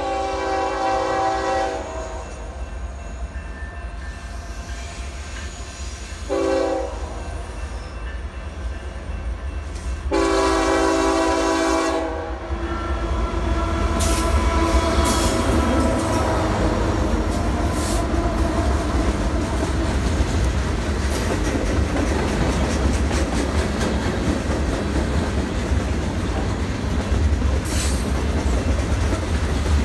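Union Pacific diesel freight locomotive's multi-chime horn sounding a long blast, a short one and another long blast for the grade crossing. The locomotives then pass close by, and the freight cars follow, rolling with a steady rumble and a rapid clickety-clack of wheels over the rail joints.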